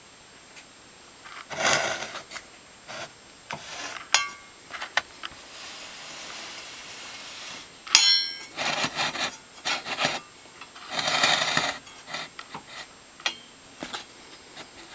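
Hand work on a DeWalt DW7491 table saw's blade-alignment mechanism with the saw switched off: metal parts scraping and rubbing in several bursts. Sharp metallic clinks ring briefly about four and eight seconds in.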